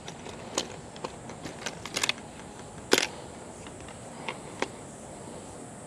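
Lures and tackle clicking and rattling in a tackle box as it is rummaged through: scattered light clicks, the sharpest about two and three seconds in.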